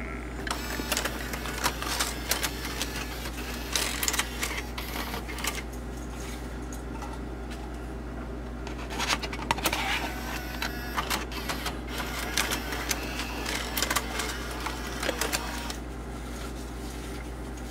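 Ford in-dash six-disc CD changer mechanism loading a disc into its stack: a small motor whirs while gears and levers click and clack in irregular clusters as the disc is drawn in and seated. The changer is working again after its jam was repaired. A steady low hum runs underneath.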